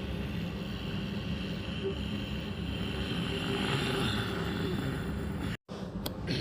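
A steady low rumbling noise that cuts out to dead silence for a split second near the end.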